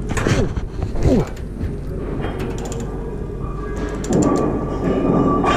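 Metal creaking, clicking and grinding as a heavy exhaust manifold of a TEM7 shunting diesel locomotive is worked onto its flange bolts with hand tools. A few short falling squeaks come in the first second, and a denser grinding with a thin steady whine sets in over the last couple of seconds.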